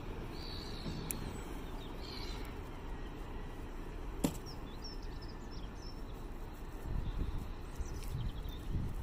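Outdoor ambience: a steady low rumble with faint, short high chirps like small birds, and a single sharp click about four seconds in.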